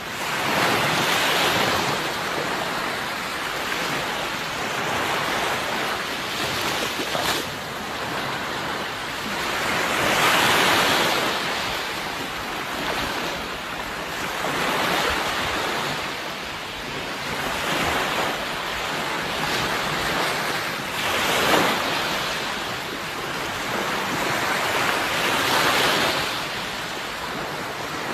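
Sea waves surging and breaking, a louder wash of surf about every four to five seconds.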